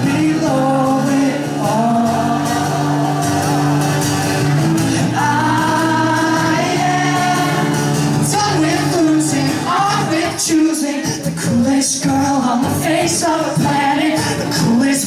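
A man singing into a microphone while strumming an acoustic guitar, a live solo performance with the vocal held in long sung lines.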